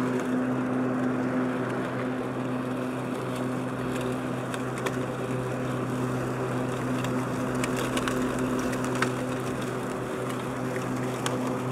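Powersmart 80-volt cordless 26-inch twin-blade self-propelled lawn mower running at a steady pitch while mulching grass and leaves, with a few light ticks from debris.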